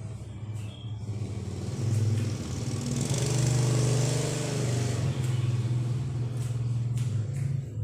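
A motor vehicle engine passing by, swelling loudest about three to five seconds in over a steady low hum.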